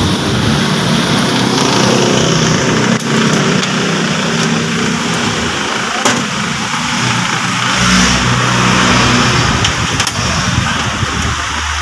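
An engine running steadily at idle, with a few light clicks about three, six and ten seconds in.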